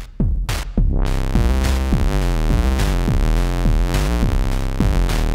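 Moog DFAM analog percussion synthesizer playing a sequenced pattern of drum hits that drop quickly in pitch, about four a second. About a second in, a Moog Mother-32 bass sequence joins, a stepping synth bass line that carries on under the drums.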